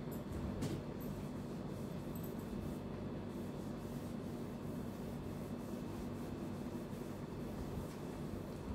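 A cloth duster rubbing across a whiteboard, a steady wiping noise, with a couple of light clicks near the start.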